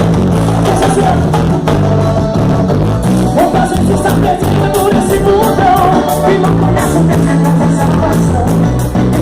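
Gospel forró band music with a steady beat: bass, drums and a melody line.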